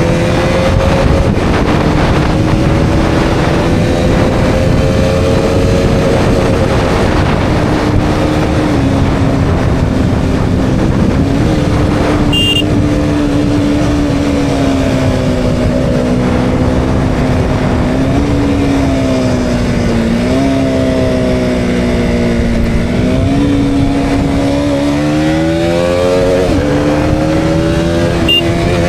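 KTM Duke 200's single-cylinder four-stroke engine running under way, its pitch easing off and picking up again with the throttle, then climbing steadily as it revs up near the end. There is a brief high-pitched beep about twelve seconds in.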